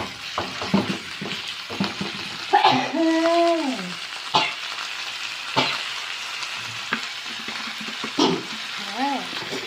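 Beef and red curry paste sizzling in hot oil in a pan, stirred with a utensil that clicks and scrapes against the pan at irregular moments. Two short tones that fall in pitch come about three seconds in and again near the end.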